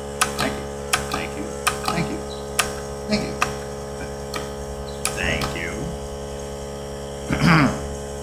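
Lever of a mechanical tally counter being pressed again and again, each press a sharp click as the count advances by one: several quick clicks in the first half, then only one or two more. A steady hum runs underneath, and a short voice-like sound comes near the end.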